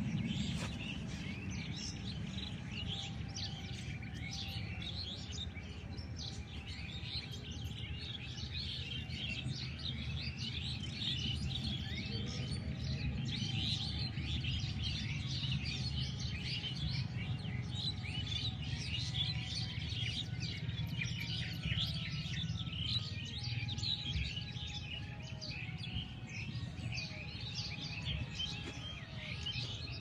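A dense, continuous chorus of many birds chirping, short high chirps overlapping without pause over a steady low hum.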